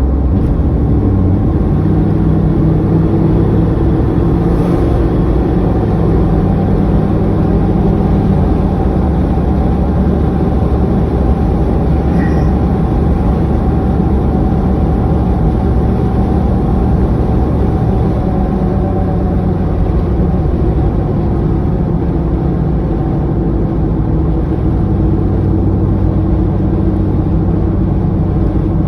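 Engine running steadily and loudly close up, its pitch shifting slightly a few times as the speed changes a little.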